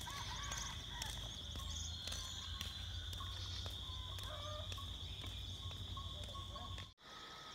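Rural outdoor ambience: a steady high-pitched insect drone, with scattered short bird calls over it.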